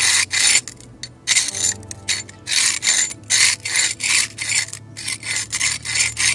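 A stiff metal scraper scraping old waterproof coating off a cinder block foundation wall, in quick repeated strokes of about two a second.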